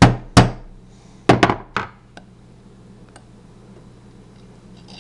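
Small hammer tapping a roll pin punch to drive the bolt catch roll pin into an AR-15 lower receiver: about five sharp metallic taps in the first two seconds, then a couple of faint ticks.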